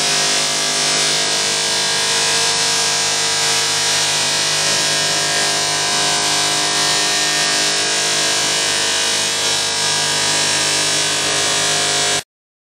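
Power tool running steadily as it sands curb damage out of an aluminium alloy rim with abrasives, a dense grinding hiss over a steady motor hum. It cuts off suddenly near the end.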